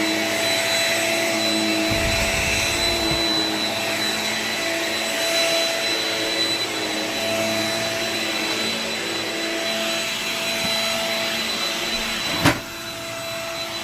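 Shark Rocket Ultralight Upright corded stick vacuum running steadily with a high motor whine. There is a brief low rumble about two seconds in, and a sharp click near the end, after which it runs a little quieter.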